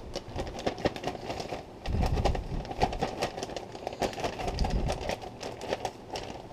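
Plastic bag crinkling and rustling as it is handled against mustard-coated fish fillets, a dense run of irregular crackles with a couple of low bumps.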